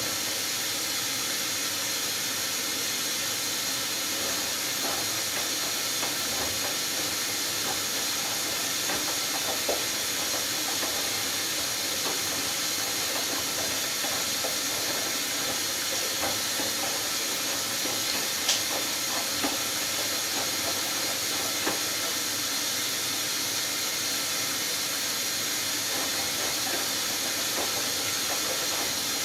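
Hoover Dynamic Next washing machine in its last rinse: a steady hiss of water with a few faint ticks.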